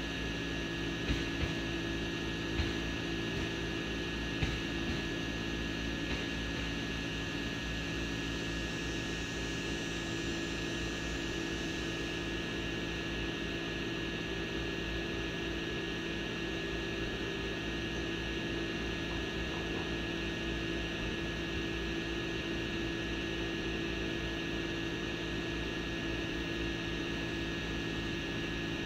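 Quadcopter drone's propellers and motors whirring steadily in flight: an even hiss with several steady hum tones, a few faint knocks in the first few seconds.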